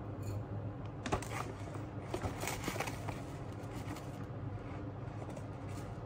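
Ground coffee being spooned out of a crinkly paper coffee bag into a glass French press: a run of small crackling rustles and clicks starting about a second in and lasting about two seconds.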